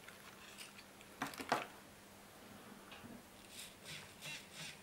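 A couple of faint clicks, then near the end an 18 g micro servo whirring in short quick bursts, about three a second, as it is swung back and forth by radio. The servo is working normally after its horn was forced onto the splines.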